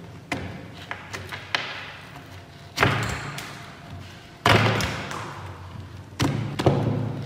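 Dried, caked soil being cracked and broken away from a buried hammer by gloved hands: a series of sharp cracks and thuds as clods break off, each followed by a short crumbling rattle of dirt falling onto the table.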